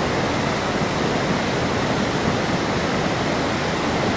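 A muddy river in flood, its fast brown water rushing past with a loud, steady noise.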